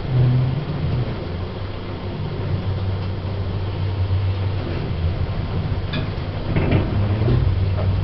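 Generic hydraulic passenger lift travelling upward, with a steady low hum. A couple of brief clicks come near the end.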